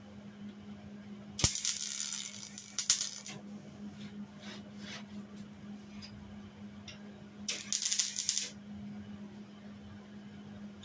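Wire-feed MIG welder laying two short bursts of weld, crackling and sizzling: one of about two seconds starting a second and a half in, a shorter one about eight seconds in, filling holes in the metal. A steady low hum runs underneath.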